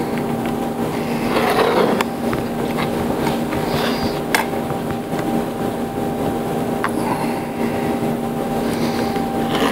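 Electric sanding machine running steadily with a constant hum, with a few sharp clicks and brief scraping sounds over it.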